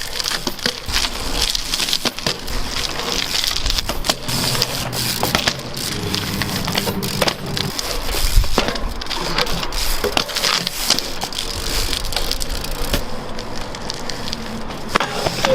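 BMX bike being ridden over rough ground: tyres crunching and rattling, with frequent clicks and knocks from the bike throughout.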